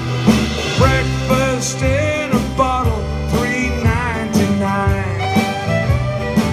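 Live folk-country band playing an instrumental break between verses: a fiddle carries the melody over strummed acoustic guitar, banjo and accordion, with a steady drum beat.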